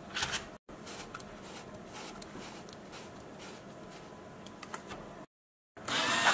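Quiet handling of a cardboard DIY money counting machine: light clicks and rubbing of cardboard parts as a banknote tray is slid in and the numbered counter wheel is turned by hand. Near the end, the sound jumps louder to a busy mechanical whirring with a whine in it as the machine's small motors start.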